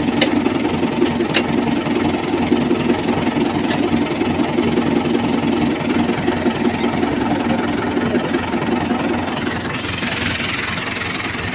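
Diesel tractor engine idling with a steady knocking beat. A few light metallic clinks come from the chain and hitch in the first few seconds.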